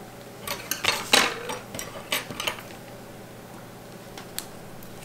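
Small metal hand tools, tweezers among them, picked up and handled against a glass plate and the bench: a run of light clicks, taps and rustles over the first two and a half seconds, then one more sharp click near the end.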